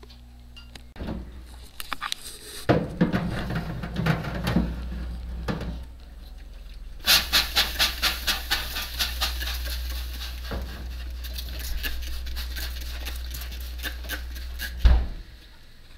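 Plastic trigger spray bottle squirting water into a hot oven, a rapid run of spritzes that slows to scattered squirts, misting the oven to make steam for the bread's crust. Clattering of the baking tray comes before it, and a single thump near the end.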